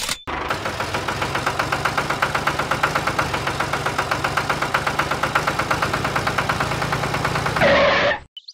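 Tractor engine idling with a rapid, even knocking beat of about ten pulses a second over a low hum. It cuts off suddenly shortly before the end.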